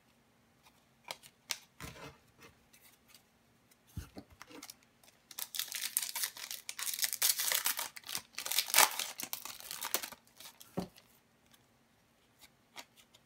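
Foil wrapper of an Upper Deck hockey card pack being torn open and crinkled for about five seconds, dense and crackly. Before it come a few light clicks and a thump as cards are handled.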